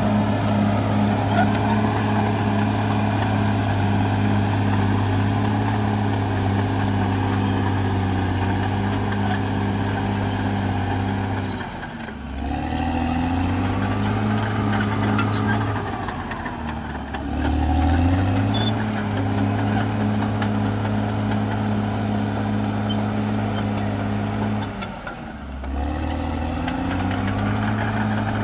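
CAT D6R XL bulldozer's diesel engine running steadily at working speed. Its note drops briefly and climbs back three times: about twelve seconds in, around seventeen seconds, and near twenty-five seconds.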